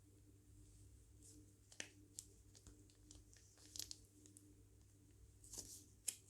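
Faint, scattered crinkles and clicks of plastic piping bags being handled, over a low steady hum; the crinkling is busiest near the end.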